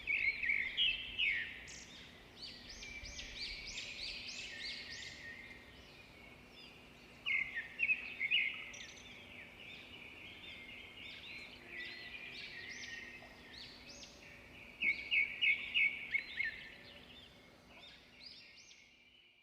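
Several songbirds singing together, a busy chorus of chirps and trills with a few bursts of quick repeated notes, fading out near the end.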